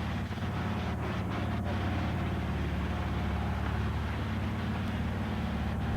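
A fishing boat's engine running at a steady speed: a low, even drone with a hiss of water and wind over it.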